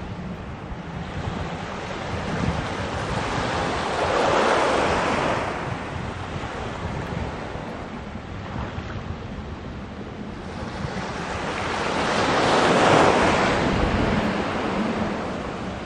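Waves washing onto the shore, two surges that each build and fade, about eight seconds apart. A steady low wind rumble on the microphone runs beneath them.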